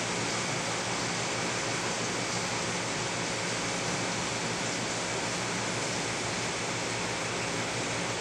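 Steady, even rushing noise of aquarium water movement and equipment running, with no change or sudden sounds.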